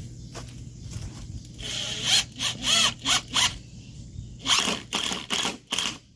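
A run of short, sharp rasping scrapes, about ten strokes in two groups, the first beginning about two seconds in.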